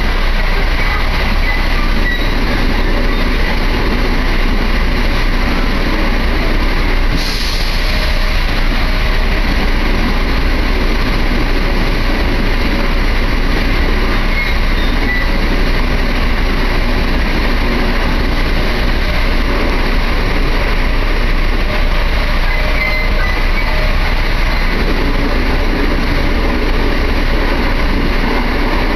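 Steady running noise inside an electric train carriage on the move: wheels on the rails and running gear, with a brief hiss about seven seconds in.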